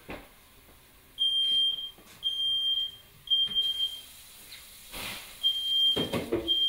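Smoke alarm sounding its high-pitched beep in the three-beep fire pattern: three beeps about a second apart, a pause, then the next set of beeps starts, set off by smoke from a kitchen fire.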